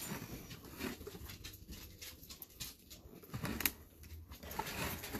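Faint scrapes and light taps of a gloved hand handling a clear plastic mini-helmet display case, with a sharper click about three and a half seconds in.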